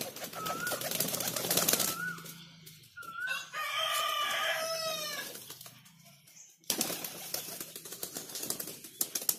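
Pigeons flapping their wings as they crowd onto a hand to feed, in a bout over the first two seconds and again in the last few seconds. Around the middle a rooster crows once, about two seconds long, and a short rising-falling chirp repeats three times before it.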